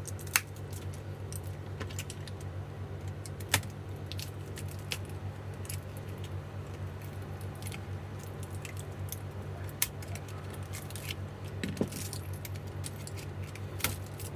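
Scattered light clicks and taps of tools and fingers working at an opened e-bike battery pack, pulling its wires free of glue, over a steady low hum.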